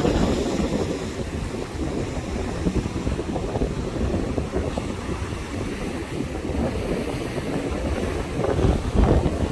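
Strong hurricane wind buffeting the microphone, with ocean surf rushing behind it. A stronger gust comes in near the end.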